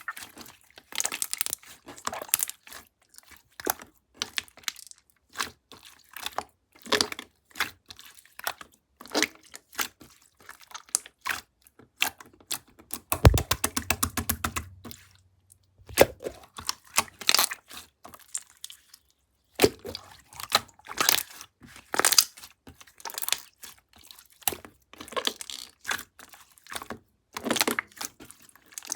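Irregular crisp cracking and crunching clicks close up, with a quick run of fine rapid clicks and a low thump about thirteen seconds in, and a pause of a second or so near twenty seconds.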